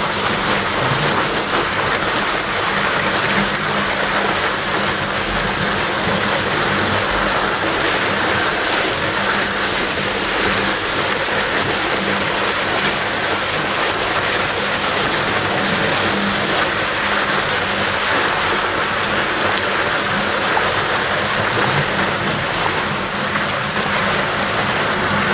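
Car tyre dragged by a Belgian draft horse over wet asphalt, making a steady rushing scrape.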